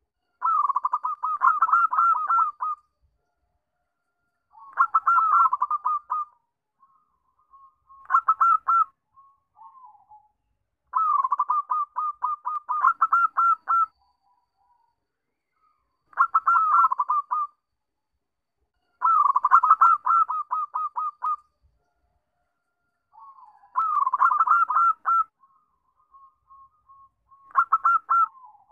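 Zebra dove (perkutut) singing: about eight phrases of rapid, clipped cooing notes, each lasting one to three seconds and separated by short pauses, with a few soft lower coos in between.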